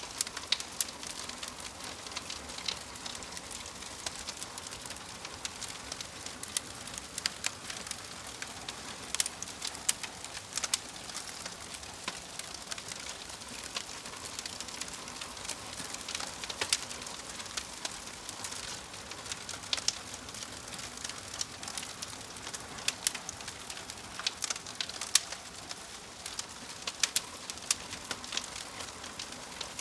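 Log fire burning in a fireplace: a steady hiss with frequent, irregular sharp crackles and pops.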